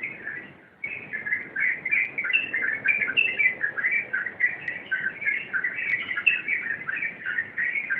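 Yellow-vented bulbul (trucukan) singing a continuous rapid chattering run of bubbly notes with hardly a break, pausing briefly just under a second in.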